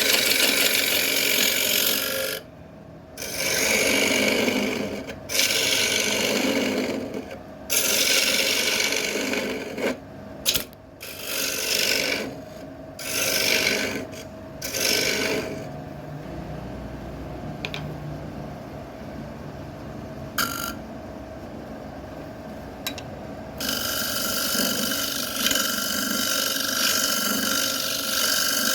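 Turning tool scraping and cutting wood on a spinning lathe, in repeated passes of a second or two each with short breaks. A quieter stretch follows, with only the lathe's steady hum, then a longer continuous stretch of cutting or sanding near the end.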